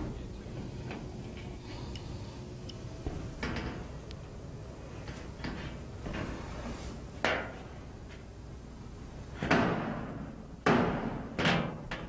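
Metal cabinet panels of a chiller being unbolted with a nut driver and pulled off. Light clicks at first, then several knocks and thumps of the panel with a short metallic ring, the loudest three in the last few seconds.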